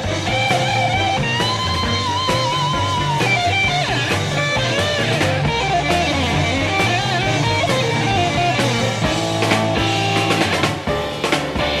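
Blues-rock band music with no singing: a lead guitar plays bent, wavering notes over bass and drums.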